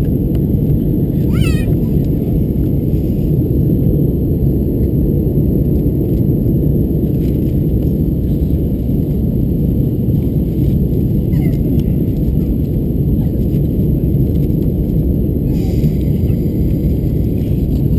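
Steady cabin noise inside an Airbus A321-212 airliner in descent: an even, low rumble of the CFM56 engines and the air rushing past the fuselage, heard from a window seat behind the wing.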